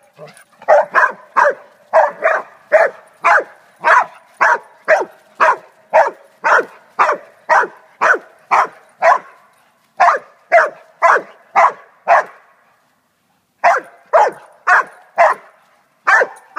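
A dog barking over and over in a steady run of sharp barks, about two a second, with a short break about twelve seconds in.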